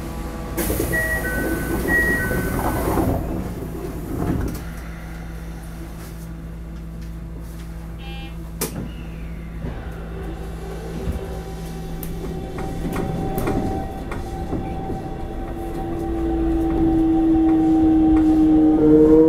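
Inside the cab of a Toei 5300-series subway train: a two-tone door chime and the hiss of the doors closing, then a thud. After a steady hum, the traction motors start up with a whine that rises in pitch as the train pulls away.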